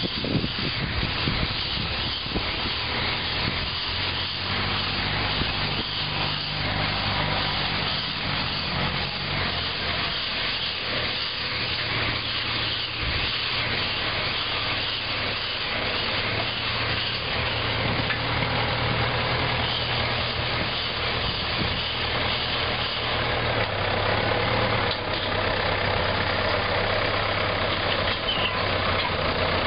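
Tractor engine running steadily, driving a round bale wrapper as it wraps a bale in plastic film. Its low note drops slightly about 25 seconds in.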